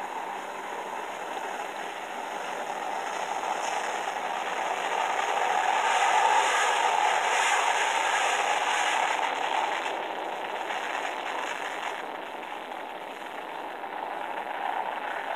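Amerijet Boeing 727 freighter's three rear-mounted jet engines at takeoff power as it rolls past: loud jet noise that swells to a peak about six to nine seconds in, then fades. It is played back through a TV's speaker, so the deep low end is missing.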